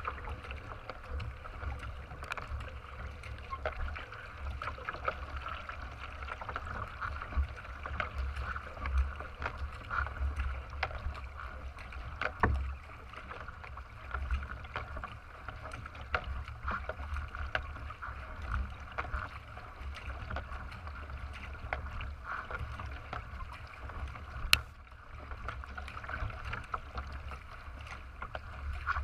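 Water splashing and rushing along the hull of a racing kayak as it is paddled, with a steady low rumble and a couple of sharp knocks, about twelve and twenty-four seconds in.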